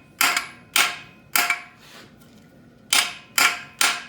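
Hammer blows driving a 3/8-inch socket onto a rounded-off, stripped bolt head: six sharp, ringing metallic strikes about half a second apart, with a pause of about a second and a half between the third and fourth.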